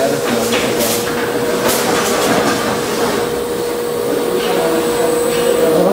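Automatic cardboard case packing machine running: a steady mechanical drone with a constant whine, broken in the first couple of seconds by short hisses and clicks of its moving parts.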